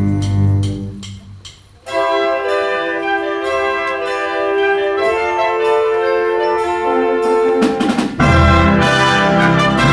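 School wind band playing: after a brief lull about a second in, upper winds and brass hold sustained chords, then the full band comes in loudly with low brass about eight seconds in.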